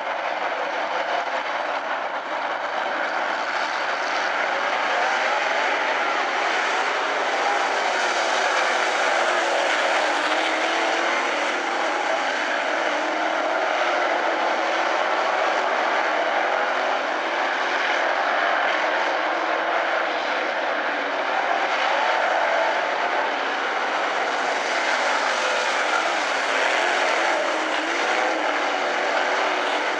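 A pack of dirt-track modified race cars running at speed around an oval, their engines blending into one steady, dense drone whose pitch wavers up and down as the cars go by.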